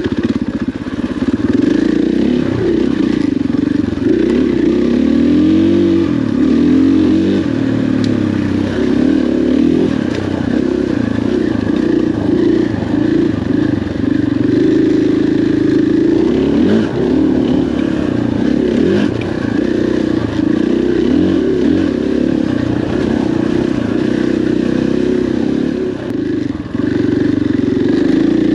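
Dirt bike engine running as it is ridden on a trail, its revs rising and falling continuously with the throttle.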